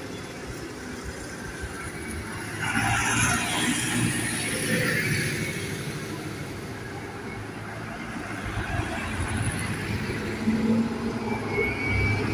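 Farm tractors driving along a tarmac road, engines running with a low steady rumble, and a brief rushing swell about three seconds in. The next tractor draws nearer and grows louder near the end.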